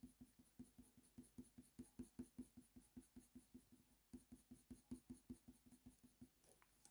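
Very faint, quick short strokes of a Faber-Castell Polychromos coloured pencil on hot-press watercolour paper, about four or five a second, with a brief pause a little before halfway.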